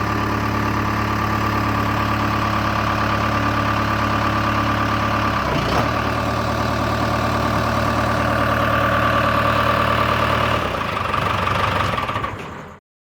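Case 580L backhoe loader's diesel engine running steadily, with a steady high whine over it. There is a single short knock about halfway through, the low engine note shifts near the end, and then the sound cuts off abruptly.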